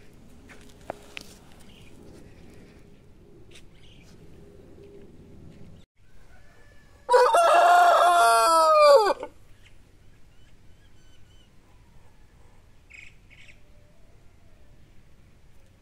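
A rooster crows once, a single loud cock-a-doodle-doo of about two seconds, roughly halfway in. Before and after it there is only low background.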